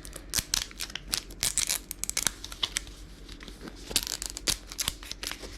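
Plastic toy packaging crinkling and tearing as it is opened by hand, in quick irregular crackles.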